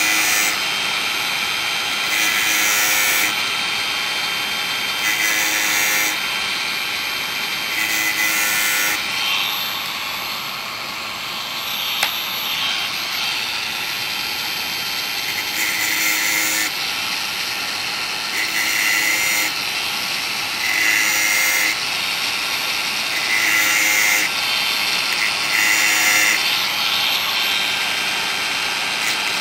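Makita DGA504 cordless angle grinder with a 115 mm stainless-steel cutting disc running steadily. Its disc bites into the chainsaw chain's cutting teeth in about one-second grinding passes, one every two to three seconds, sharpening the teeth one after another. For several seconds in the middle the grinder runs on without grinding.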